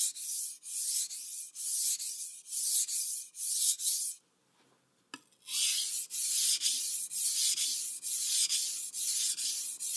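Steel knife blade stroked across a water-soaked sharpening stone in a steady run of gritty scrapes, about two a second. The strokes alternate from one side of the edge to the other, the finishing step after a burr has formed. Near the middle the strokes stop for about a second, with one click, then pick up again.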